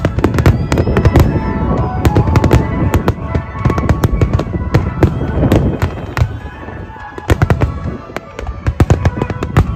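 Barrage of aerial firework shells bursting in rapid succession: many sharp bangs and crackles overlapping. The bangs ease briefly about three-quarters of the way through, then pick up again.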